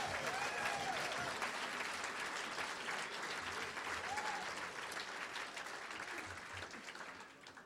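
Audience applauding, with a few voices calling out in approval in the first second and again about four seconds in. The clapping gradually dies away toward the end.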